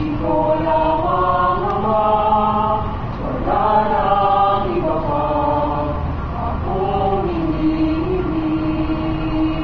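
Mixed choir of young men's and women's voices singing in harmony, holding long sustained notes that move together from chord to chord, settling on a long low note held near the end.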